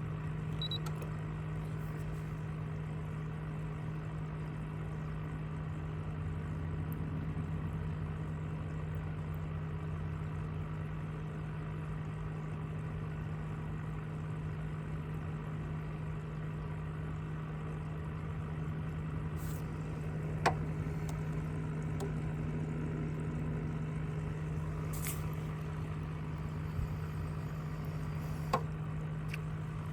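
Steady low hum of a boat motor running. A few sharp clicks or knocks come in the second half.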